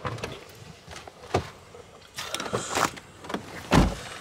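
Handling noise from a camera being moved about and bumped: several sharp knocks and rustles, with a heavy, deep thump a little before the end.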